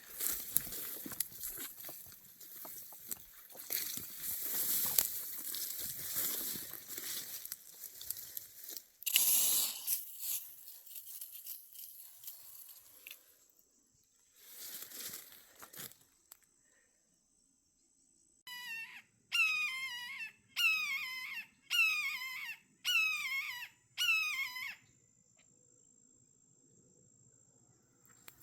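Crackling, rustling noise for about the first half, then a bird calling six times in quick succession, roughly once a second, over a faint steady high insect trill.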